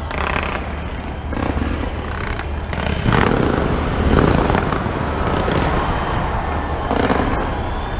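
Large fireworks display bursting in quick succession: a dense run of bangs and crackle over a steady low rumble, loudest about three to four seconds in.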